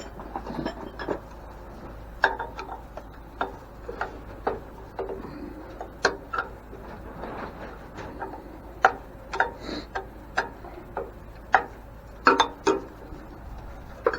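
Screwdriver working a broken, nearly headless screw on an antique grain mill: irregular sharp clicks and scrapes of the tool tip on the worn screw head.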